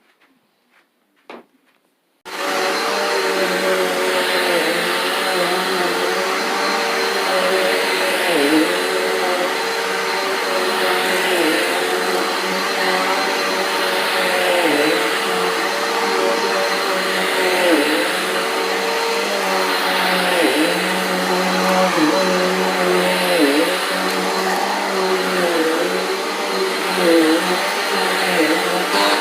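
Carpet Pro vacuum cleaner switching on about two seconds in, then running steadily and loudly, its motor note dipping briefly every second or two.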